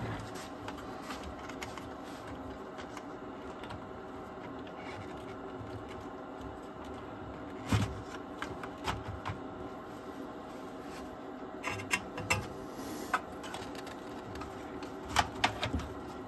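Light clicks, taps and rattles of small parts, screws and connectors being handled while a Technics RS-BX707 cassette deck is taken apart. A sharper knock comes about eight seconds in, and bunches of clicks come about twelve seconds in and again near the end.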